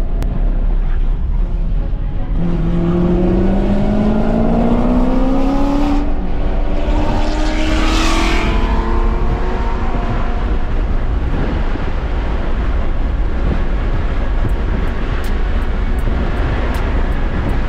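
Cabin noise of a Tesla Model 3 at race pace: steady low road and wind rumble with an electric motor whine rising in pitch as the car accelerates hard out of a corner. Around eight seconds in, another race car's engine swells loud beside it and fades as the cars pass.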